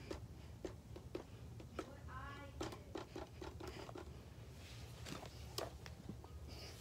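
Small sharp plastic clicks and rattles from a Nerf Zombie Strike Brainsaw blaster being handled, in an irregular string.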